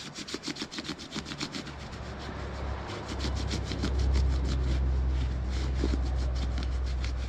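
A bare hand rubbing shoe cream into a leather jacket sleeve: quick, repeated scraping strokes, about six a second. A low rumble builds underneath from about three seconds in.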